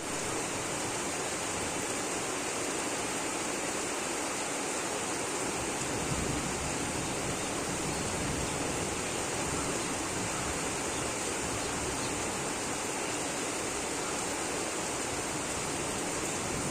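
Heavy rain falling in a sudden downpour, a steady, even hiss with no letup.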